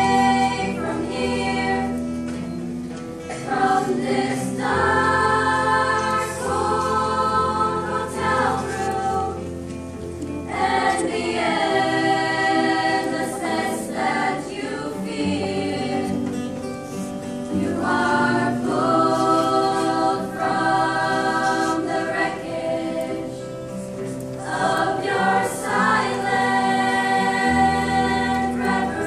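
Secondary-school choir of mixed voices singing a song in harmony, in sustained phrases a few seconds long with brief breaths between them.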